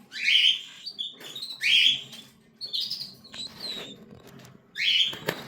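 Cockatiel chicks calling: three loud, harsh calls that sweep up in pitch, with softer calls between them.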